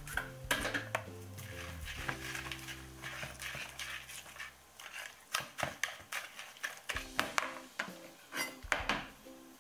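Metal wire whisk beating okonomiyaki batter in a plastic mixing bowl: irregular quick clicks and clatter of the wires against the bowl, with soft background music underneath.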